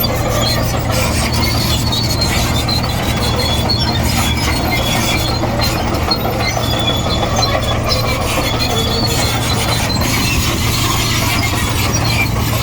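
Komatsu D58E crawler bulldozer running steadily with a low diesel drone, while a thin high-pitched squeal comes and goes.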